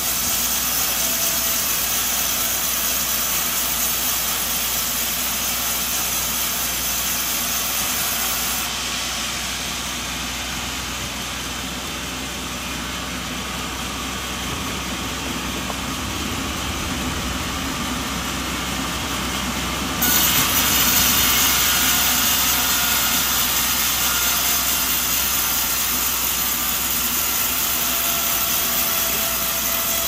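Sawmill machinery running steadily, a powered saw and its engine cutting coconut timber. The sound changes abruptly about nine seconds in and again about twenty seconds in, louder after the second change.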